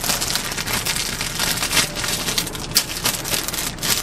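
Clear plastic packaging crinkling and rustling as it is handled, with a few sharper crackles.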